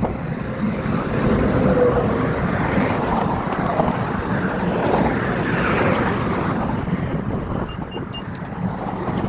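Highway traffic passing close by: a steady rush of tire and engine noise that swells as vehicles go past, with wind buffeting the microphone. Three short high beeps sound near the end.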